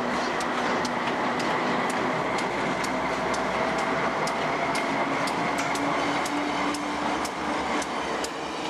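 Diesel locomotives passing close by: a steady rush of wheels on the rails with a faint engine hum and scattered sharp clicks from the wheels, easing off near the end.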